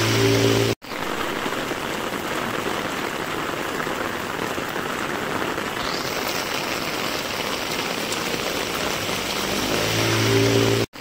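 Heavy rain pouring onto wet asphalt and pavement, a steady dense hiss. A motor scooter passes close by with a low engine hum at the start and again near the end; each time the sound cuts out abruptly for an instant.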